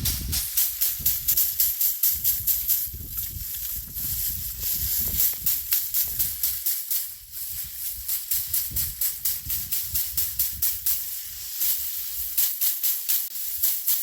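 Dried perilla plants being threshed: rapid, rhythmic strokes, about five a second, each with a dry rattling hiss of seeds shaking loose over a dull thump. There is a brief lull about seven seconds in.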